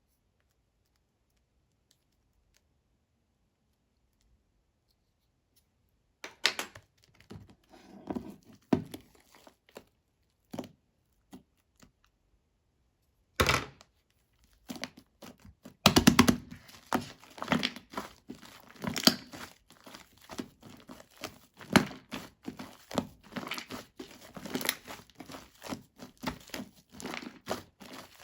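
Shaving-foam slime being squished and stretched by hand: sticky crackling, tearing and popping in quick irregular bursts. Near silence at first, the sounds begin about six seconds in, come sparsely, then run on almost without pause from about halfway.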